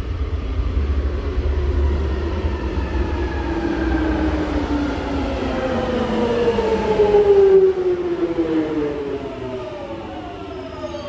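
London Underground 1996 Tube Stock train arriving and braking into the platform. A low rumble gives way to a multi-tone electric whine from its traction motors that falls steadily in pitch as the train slows. It is loudest a little past the middle, then fades.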